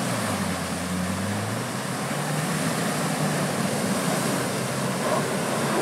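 Off-road SUV's engine working under load as it ploughs through a deep, water-filled mud rut, its pitch rising and falling, over the steady wash of tyres churning and spraying muddy water.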